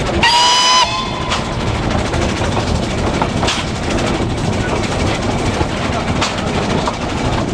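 Kč4 narrow-gauge steam locomotive's whistle giving one short blast just after the start, then the train running along the 750 mm track with a steady rumble and a sharp click every two or three seconds.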